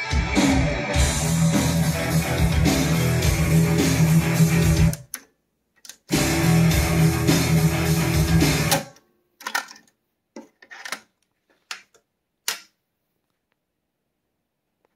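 Guitar music playing back from a Pioneer CT-F500 cassette deck. It cuts off abruptly about five seconds in, comes back a second later, and stops again near nine seconds. Then come several short, sharp mechanical clicks from the deck's transport keys and its cassette door ejecting open.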